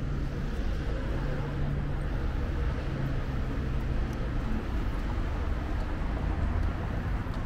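Road traffic on a city street: a vehicle engine's steady low hum over the wider traffic noise.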